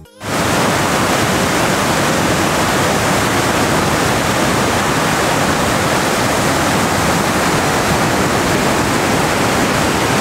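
Fast, silt-laden mountain river rushing and churning over rocks: a loud, steady rush of water that cuts in suddenly at the start.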